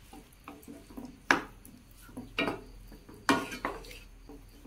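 Spatula stirring a wet mix of chana dal, ada and sago in melted jaggery in a non-stick pan, with irregular scrapes and knocks against the pan. The sharpest knocks come a little over a second in and again just over three seconds in.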